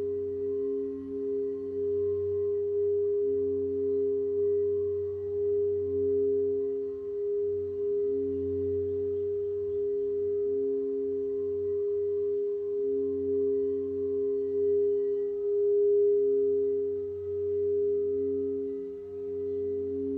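Two crystal singing bowls rimmed with mallets at once, giving two sustained, overlapping tones that swell and fade in slow waves.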